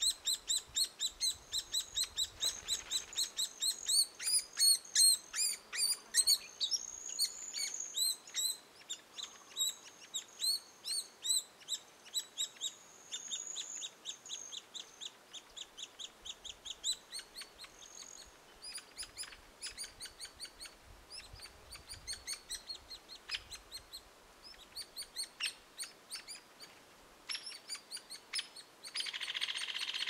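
Hairy woodpecker nestlings begging from inside the nest cavity: a fast, steady run of high chirps, about four a second, with a few longer drawn-out notes. The calls thin out in the second half, and a steady hiss comes in near the end.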